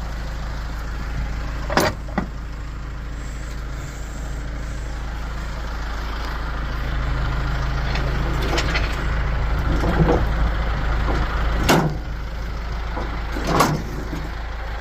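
Mower deck being worked free and pulled out from under the mower: a few sharp metal knocks and clatters over a steady low hum.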